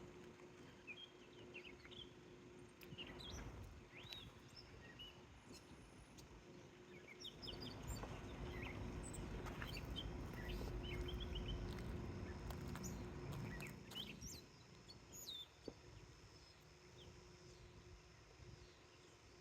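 Songbirds chirping in many short, scattered calls over a low background rumble that swells for a few seconds mid-way.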